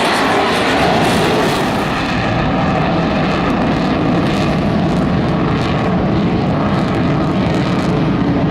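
Fixed-wing display aircraft flying past, its engine noise loud and steady throughout.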